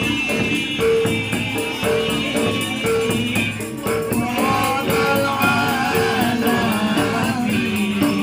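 Bantengan accompaniment music: Javanese percussion ensemble music with a steady pattern of repeated pitched notes, drumming and jingling rattles, and a bending melody line about halfway through.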